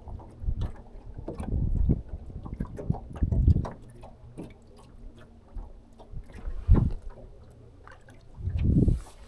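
Water slapping against a small fishing boat's hull, heard as irregular low thumps and knocks.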